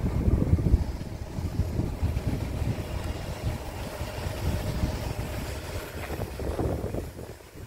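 An engine running with a low, uneven rumble.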